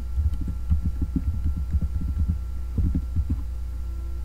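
Computer keyboard being typed on, heard as irregular low thuds at typing pace over a steady electrical hum.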